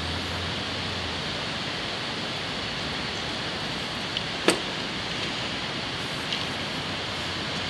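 Steady rushing noise in the background, with one sharp knock about halfway through as a truck cab shock absorber is pushed into its coil spring on a steel base.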